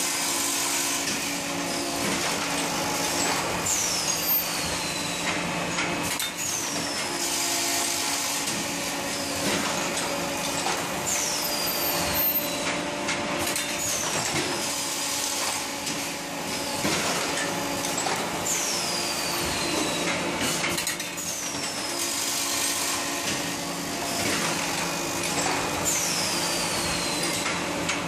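Automatic double-mold grinding-wheel making machine running: a steady mechanical hum with short metal clatter from the molds and parts. A high whine falling in pitch comes back every few seconds with the machine's cycle.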